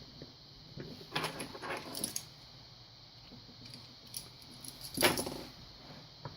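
Metal clinks and rattles as a cross-key lock is handled and clamped up, with one louder clatter about five seconds in.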